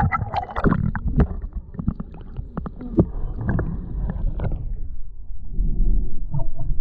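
Water slapping and knocking against a small boat, with a low rumble underneath. There is a run of sharp knocks over the first few seconds, then the noise settles into a low, pulsing rumble.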